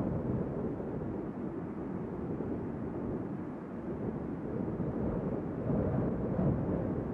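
Moderate wind blowing as a low, rushing noise that rises and falls in gusts, swelling slightly about six seconds in.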